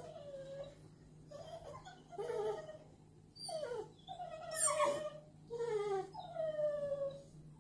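American bulldog puppy whining: a string of about seven short, high whines, most of them falling in pitch.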